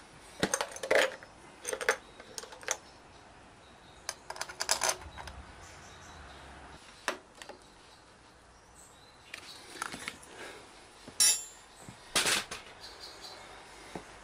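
Metal tools and parts clinking and clattering in irregular little clusters, with two sharper knocks near the end.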